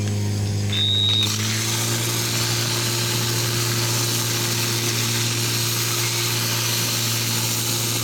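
Portable fire pump engine running steadily under load, joined about a second in by the hiss of water jets spraying from the hose nozzles. A short high beep sounds just before the spray starts.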